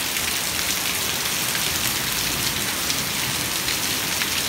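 Heavy rain mixed with hail pelting a concrete patio: a dense, steady hiss with many sharp ticks of hailstones striking.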